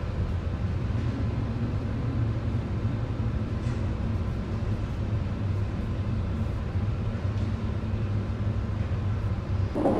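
Steady low rumble of a container ship under way in heavy seas, with the rush of wind and breaking water against the hull. Near the end it switches abruptly to a louder, hissier rush.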